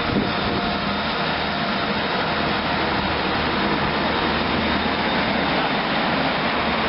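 Class 175 diesel multiple unit running past: a steady drone from its underfloor diesel engines, with wheel-on-rail noise.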